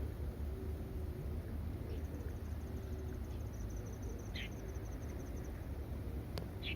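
Outdoor ambience: a high, rapidly pulsing insect trill over a steady low rumble, with two short high chirps, one midway and one near the end, and a single click just before the second.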